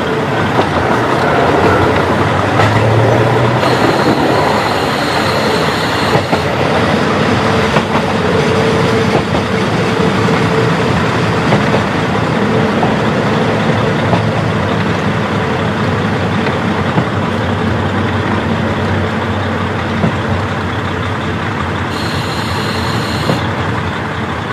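KiHa 40 diesel railcar running, heard through an open window: steady engine and wheel-on-rail noise. A brief high-pitched ringing sounds about four seconds in and again near the end.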